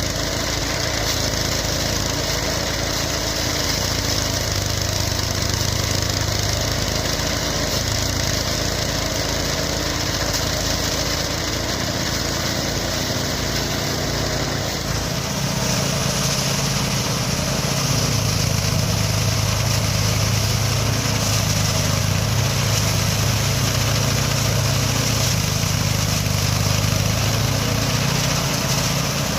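Small engine of a mini rice threshing machine running steadily; about halfway through its sound changes and grows a little louder.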